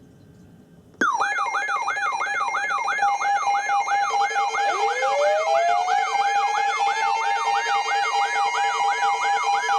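Several weather alert radios sounding their alarms together as a warning is issued, starting suddenly about a second in: a fast up-and-down warbling siren tone layered with steady and rapidly beeping tones, and one tone gliding upward in pitch from about halfway through.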